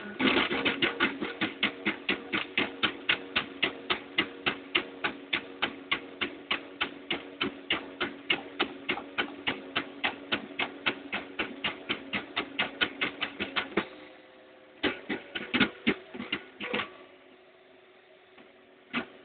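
3D printer at work: a fast, even clicking of about four a second over a steady motor hum. The regular clicking stops partway through, leaving a few scattered clicks and the hum.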